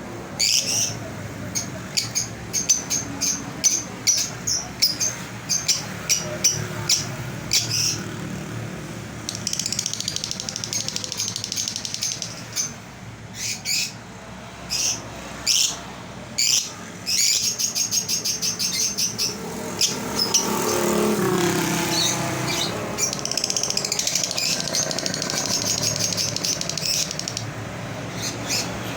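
A pair of olive masked lovebirds chirping: quick, sharp, high chirps throughout, with several long, rapid chattering trills lasting a few seconds each.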